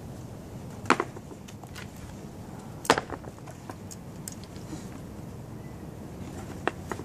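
Scissors snipping through the nylon straps of a backpack-style disc golf bag: two sharp snips about two seconds apart, then a few lighter clicks near the end.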